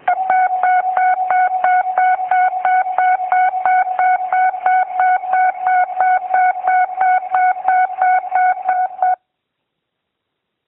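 Sellafield building evacuation alarm, the signal to evacuate a building because of widespread air contamination: a single steady tone pulsing rapidly, about four pulses a second, that stops abruptly about nine seconds in. It is heard over a telephone line.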